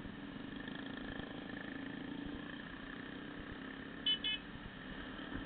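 Small motorcycle engine running steadily at cruising speed, with two quick, high beeps close together about four seconds in.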